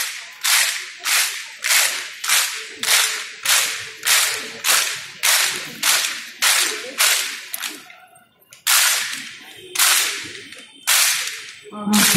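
A large group of schoolgirls clapping in unison, a steady beat of about two sharp claps a second. About eight seconds in they stop briefly, then clap three times more slowly, about a second apart.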